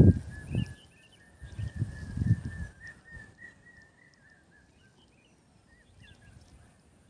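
Small birds chirping, with a thin whistling tone that wavers and fades out about halfway through. A few low, muffled thumps come in the first three seconds.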